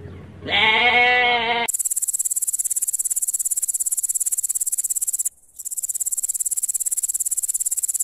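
A sheep bleats once, a single drawn-out call. Then a grasshopper stridulates: a high, fast-pulsed chirring that breaks off briefly about five seconds in and starts again.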